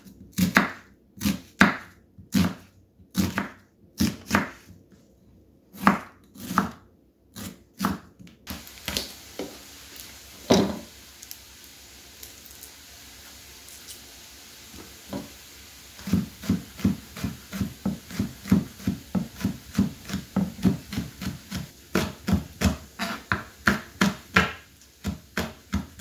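Kitchen knife chopping on a wooden chopping board: steady strokes dicing an onion at first, then a quieter stretch with only a few faint clicks, then quicker, evenly spaced chopping through the last ten seconds.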